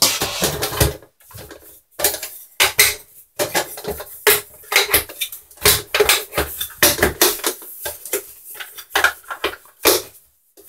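Irregular plastic clicks, knocks and rattles of a Tetra EX 800 Plus canister filter's motor head and canister being handled and fitted together by hand.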